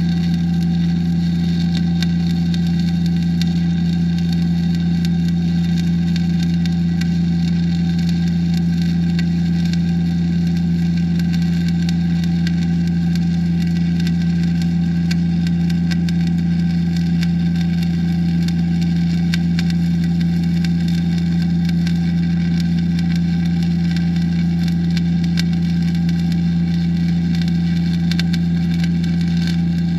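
Stick welding with a 9018 rod: the arc crackles steadily while the bead is run uphill, over a loud steady low hum from the welding machine.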